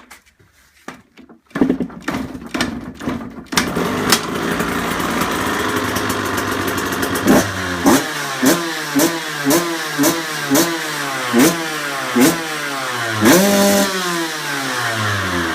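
Small KTM two-stroke dirt bike engine being started with its carburettor float bowl just run empty: it sputters for a few seconds before catching, then idles. It is then blipped about ten times in quick succession, with one bigger rev near the end that drops back to idle.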